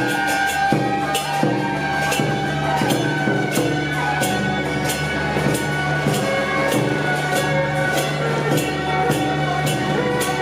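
Procession music: steady held notes with a regular percussion beat, a little more than one stroke a second.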